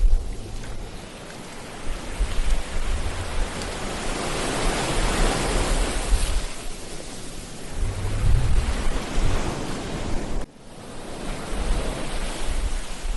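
Ocean surf washing onto a beach, swelling to a louder wash about four to seven seconds in, with wind buffeting the microphone in low gusts. About ten and a half seconds in, the sound drops out suddenly for a moment.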